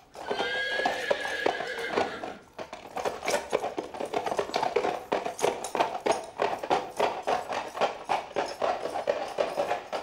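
A horse whinnies for about two seconds, then hooves clatter quickly and rhythmically on cobblestones as the horse gallops.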